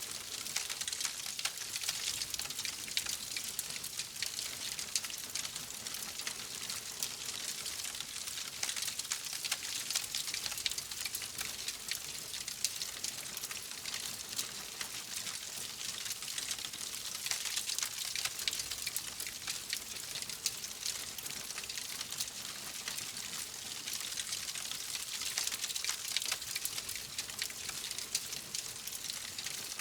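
Wood fire crackling steadily: a dense run of small pops and snaps over a soft hiss.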